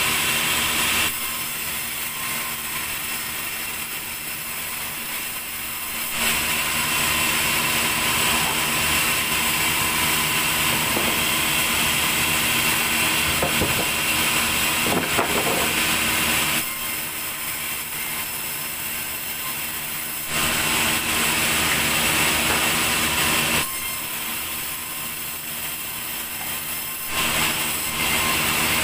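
Large vertical band saw in a sawmill ripping a log lengthwise: a steady high whine, louder for stretches of several seconds while the blade cuts through the wood and quieter in between, with a few wooden knocks around the middle.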